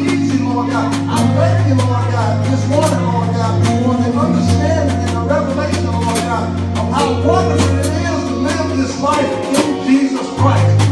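Live gospel band playing: a drum kit with sharp regular snare and cymbal hits over held bass notes, with voices singing. The bass drops out briefly near the end.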